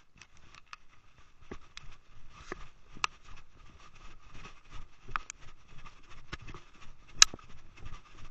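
Footsteps of a person walking along a wooden dock and up a concrete boat ramp, heard through a body-worn camera with clothing rubbing over its microphone: a rustling noise with irregular sharp clicks and knocks, the sharpest about seven seconds in.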